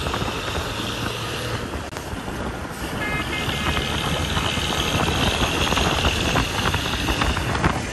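Diesel bus engine running as the bus drives along close by, with road and wind noise. A higher hiss comes in about three seconds in.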